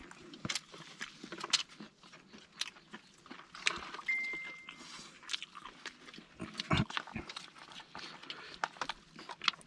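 Scattered clicks, crunches and rustles of people eating: spoons tapping plastic tubs and foam boxes, plastic bags handled, and grilled fish torn and chewed. A short high beep sounds about four seconds in, and a dull thump near seven seconds.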